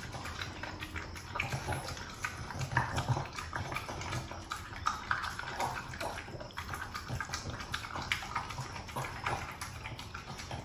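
A Boston Terrier eating soft homemade turkey dog food from a bowl, with many quick, irregular wet chewing and lapping clicks.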